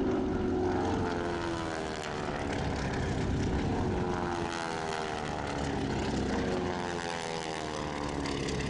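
North American AT-6 Texans' Pratt & Whitney R-1340 Wasp radial engines and propellers droning in flight, with the pitch of several overlapping engines sliding down and up as the formation passes.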